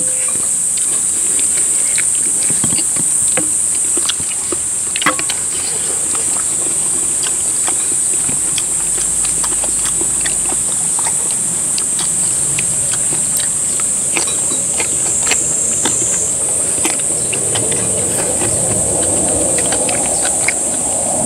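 Steady, loud, high-pitched drone of summer insects, with scattered light clicks of spoons and chopsticks against stainless steel bowls. A low rumble builds over the last several seconds.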